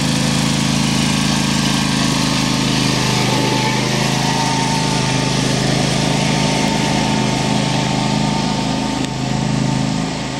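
John Deere X300-series riding lawn tractor engine running steadily as the tractor drives off, a little quieter near the end.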